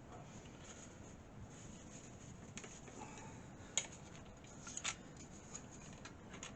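Faint handling noises of computer parts being worked on by hand: small clicks and scrapes, with one sharper click nearly four seconds in and a few more just before five seconds.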